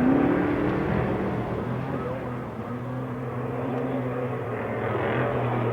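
Off-road race vehicle engines: one fades away in the first second, then another holds a steady, lower pitch and grows slowly louder from about two and a half seconds in.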